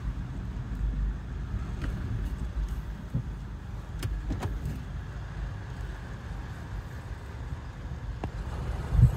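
Low steady rumble of a car heard from inside its cabin, with a few faint clicks about four seconds in.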